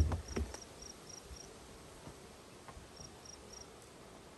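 An insect chirping high and faint in short runs of about four chirps a second, with a pause in the middle. Two sharp knocks sound right at the start.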